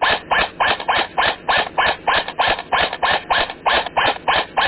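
Rhythmic rubbing or scraping close to the microphone, about three strokes a second, each stroke short and evenly spaced.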